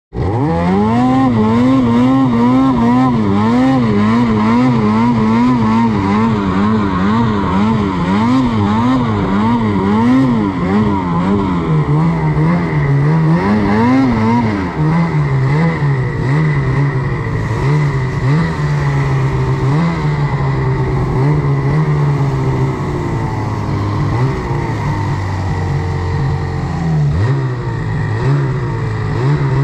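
Snowmobile engine running hard while it is ridden through snow, the revs rising and falling in quick waves, then dropping to a lower, more even pitch about halfway through. A faint steady high whine runs above it from about halfway on.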